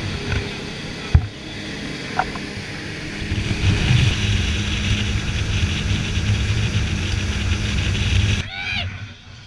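Twin outboard motors driving a boat at speed, a steady low hum mixed with wind and rushing water. The sound drops off abruptly near the end, where a voice comes in.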